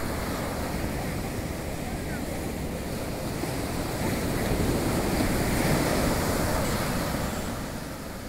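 Sea surf washing on a sandy beach, a continuous rush that swells about halfway through and eases near the end, with wind rumbling on the microphone.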